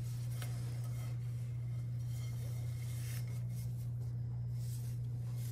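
A steady low hum, with a few faint rubs and light clicks of gloved hands turning a glazed ceramic bowl.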